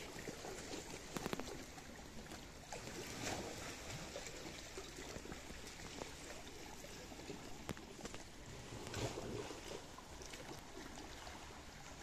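Calm sea water lapping and trickling against shore rocks, with scattered small splashes and a few gentle swells.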